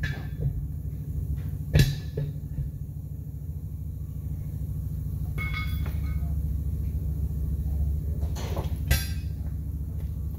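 Steel tire irons knocking and clinking as a truck tire is levered by hand: a sharp knock about two seconds in, a ringing metal clink around the middle, and another knock near the end. Under it runs a steady low machine hum.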